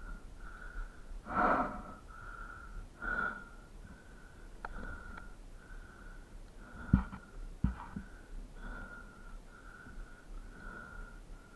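A person panting hard, each quick breath carrying a whistle, about one and a half breaths a second. There is a heavier breath or grunt about a second and a half in and two sharp knocks around seven seconds in.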